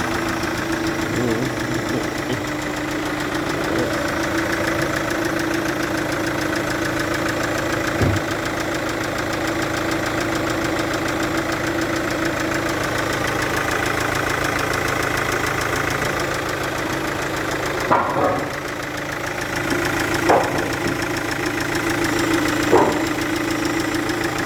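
Chevrolet Captiva VCDI diesel engine idling with a steady knock, caused by compression leaking past one of its injectors. A few brief sharp sounds stand out, mostly in the last third.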